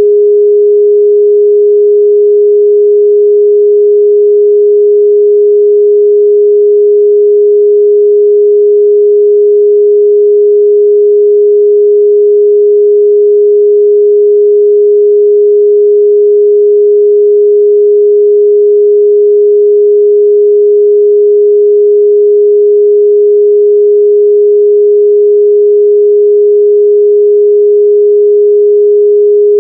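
Steady 414 Hz pure sine test tone, one unwavering mid-range pitch at constant level with no overtones, used to check a speaker's or headphones' frequency response.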